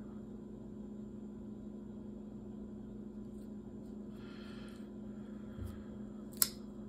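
Steady low electrical hum of room tone, with a faint rustle of handling partway through and a single sharp click about six seconds in.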